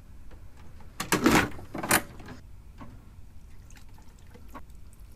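Liquid poured from a bottle into a rice cooker pot in two short splashes about a second in, then light clicks and taps of a bottle and ingredients being handled.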